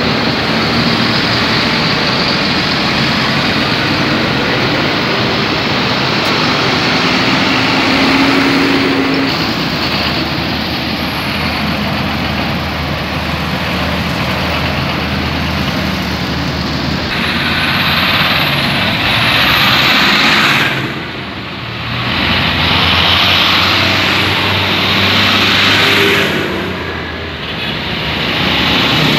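A column of big farm tractors driving past one after another, their diesel engines running under load along with tyre noise on a wet road. The sound swells and eases as each tractor goes by, dipping twice near the end.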